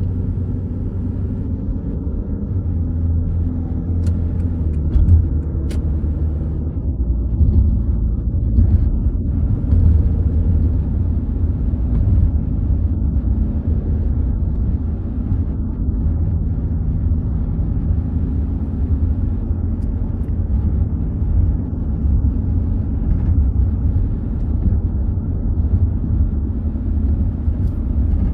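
Car driving along the road: steady low engine and road rumble, with a few faint ticks about four to six seconds in.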